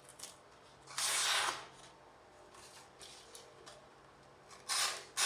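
A folding knife's 5Cr13 stainless steel blade slicing through a sheet of paper, a hissing, rasping cut heard twice: once about a second in and again near the end. The cuts test the blade's sharpness.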